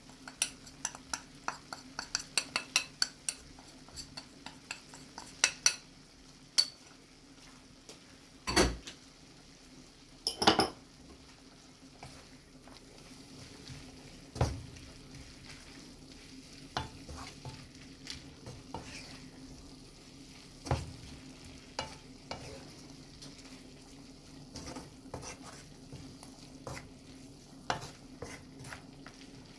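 Spatula stirring spice powder into chicken tikka, onions and peppers sizzling in a frying pan, with quick clicks and scrapes against the pan. The clicking is busy for the first several seconds, there are two louder knocks partway through, and then the stirring slows to occasional taps over the steady sizzle.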